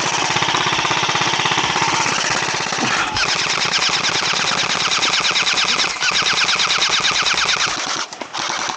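Airsoft gun firing on full auto in long, rapid, continuous strings, broken briefly about three and six seconds in and stopping shortly before the end.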